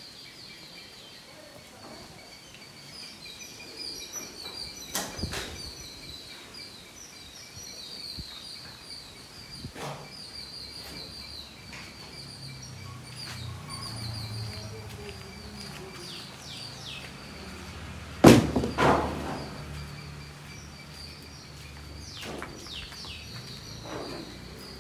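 Insects chirring steadily at a high pitch, with scattered sharp knocks and one loud thump about eighteen seconds in; a low hum joins about halfway through.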